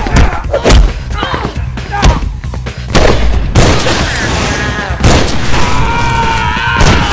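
Dubbed fight sound effects over music: a quick run of sharp punch impacts, then two heavy booms as a vampire bursts into flame, and a long, wavering high scream.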